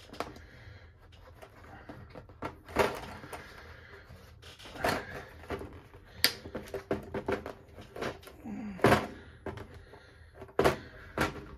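Hard plastic knocking and clicking as a plastic Beyblade stadium bowl is shifted on a table and its tight snap-in plastic foot pegs are pushed into place. Irregular sharp thunks, a few of them louder.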